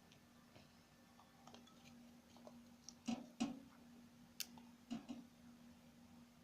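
Faint scattered clicks and light knocks, a few close together about halfway through, over a low steady hum.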